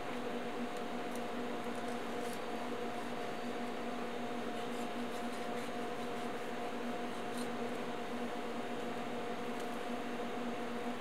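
Steady hum at a constant pitch, with faint soft clicks and squishes as a chef's knife cuts a leg off a raw whole chicken on a wooden board.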